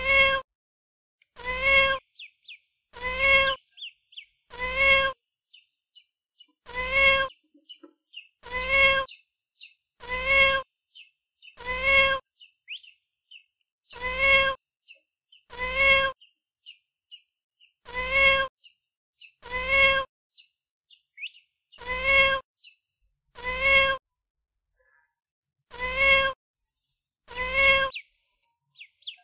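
Kitten meowing over and over, one short meow about every one and a half to two seconds, each one alike and held on a single pitch. Faint, short, high duckling peeps come in between.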